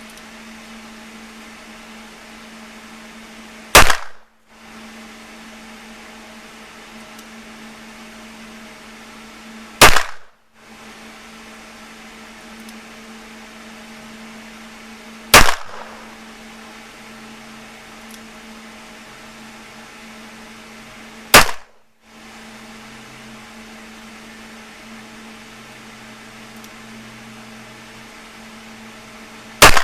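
Five single pistol shots fired slowly, several seconds apart, each a sharp crack with a short ring after it, over a steady low hum.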